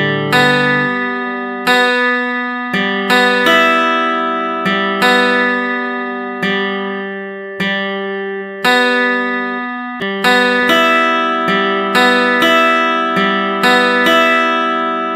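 Background instrumental music: a slow, gentle melody of plucked-string notes and chords, each struck sharply and left to ring out and fade, about one or two a second.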